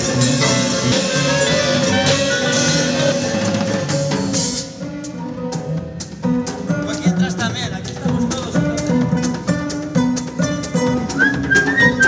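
Small band playing instrumental music; the full ensemble sound thins out about four and a half seconds in to a lighter passage with many sharp percussive strokes.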